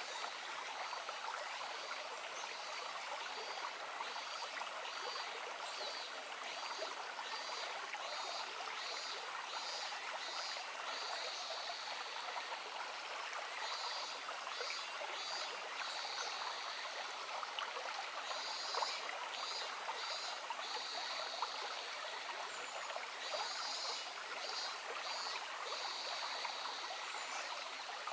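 Shallow stream running with a steady babble of water. Over it, groups of short, high-pitched chirping calls come and go every few seconds.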